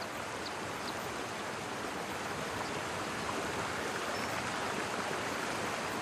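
Mountain stream rushing steadily over rocks. A few short, faint high chirps sound in the first second.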